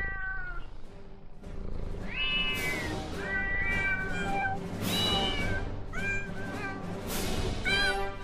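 A cat meowing several times, each a drawn-out falling cry, over background music with a steady bass line.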